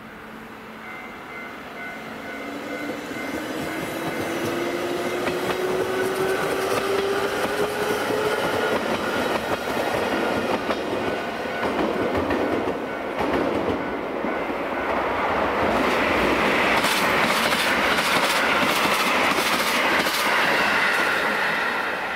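JR Hokkaido 731-series electric train accelerating, its motor whine rising steadily in pitch over the first nine seconds. Later the wheels clatter over rail joints as the train passes close, loudest from about sixteen to twenty-one seconds, then the sound fades.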